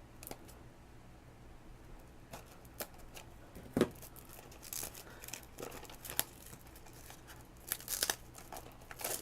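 A Doorables mini toy pack's packaging being torn open and crinkled by hand, with scattered crackles and snaps; the sharpest snap comes about four seconds in.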